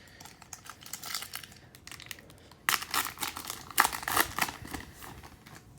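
Crinkling and rustling as trading cards and their packaging are handled. It is louder and busier from about three seconds in.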